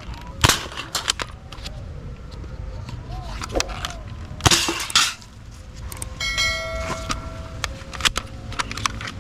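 Plastic toy blaster being handled and fired: a string of sharp clicks and snaps, a longer hissing burst about four and a half seconds in, and a short buzzing tone with several pitches about six seconds in.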